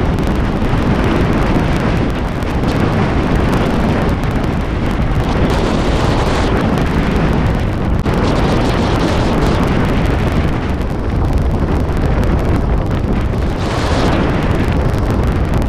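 Wind rushing over the microphone of a camera on a moving car, with low road and tyre noise beneath. The noise changes abruptly a few times.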